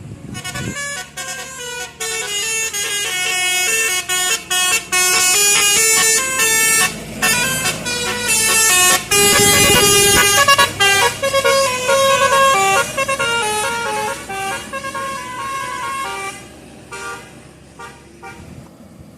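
Bus 'telolet' musical horns playing quick multi-note tunes, the notes stepping up and down in rapid succession. The horns grow louder to a peak about ten seconds in and fade over the last few seconds.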